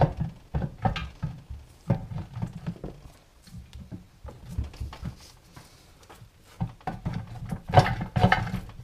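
Farmall Super M hydraulic Lift-All unit's heavy cast-iron housing being lifted and wiggled on a workbench to work an internal lever piece free: irregular knocks and clunks, coming faster and louder near the end.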